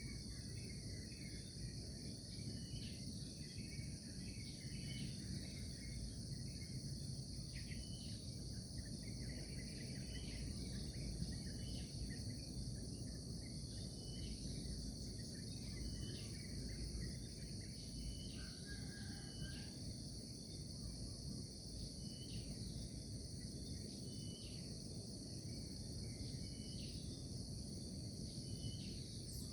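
Steady, high-pitched chorus of insects such as crickets, with many short bird chirps scattered through it over a low background rumble.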